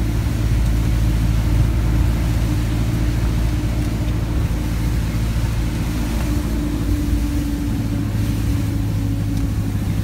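Engine of a moving vehicle running steadily with a low drone, heard from its open back with wind and road noise.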